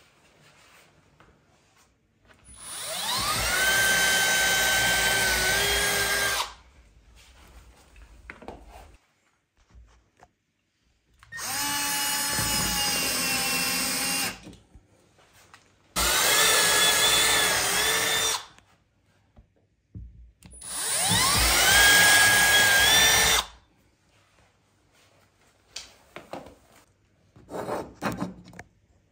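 Milwaukee cordless drill/driver driving screws through a TV wall-mount plate into the wall, in four runs of a few seconds each. Each run's whine rises as the motor spins up, then holds steady while the screw goes in.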